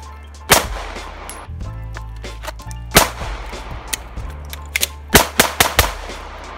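Shots from a 9mm Glock 19 pistol fitted with a slide-mounted compensator. One shot comes about half a second in and another near three seconds, then a quick string of several shots follows around five seconds in.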